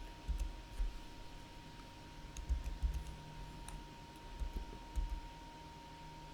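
Irregular clicks of a computer mouse and keyboard being used, a few at a time with pauses between, over a faint steady high hum.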